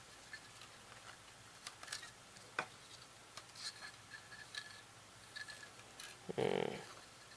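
Faint, scattered clicks and taps of plastic VHS cassette parts being handled and pulled apart, with a brief soft noise about six and a half seconds in.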